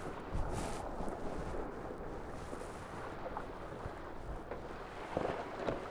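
Wind buffeting the microphone and water rushing past the hulls of a Tornado racing catamaran under sail, with a few brief louder bursts about half a second in and again near the end.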